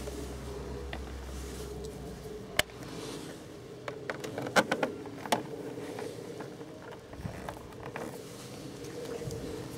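Hard plastic motorcycle fairing panel clicking and tapping as it is fitted into place with a screwdriver: a sharp click about two and a half seconds in, then a quick run of clicks a little later, over a steady low hum.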